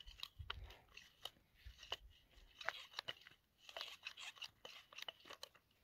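Faint crunching and scattered light clicks of snow and ice while a wooden winter tip-up is handled and reset at an ice hole.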